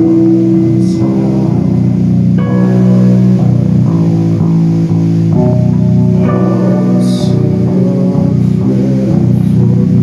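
A live rock band playing at full volume. Electric guitars and bass hold long, heavy chords that change every few seconds, over drums, with a brief bright crash about a second in and another past the middle.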